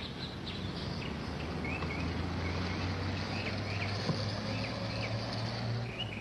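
A car engine running with a low, steady hum that grows slightly louder, while birds chirp in short repeated calls over it from about two seconds in.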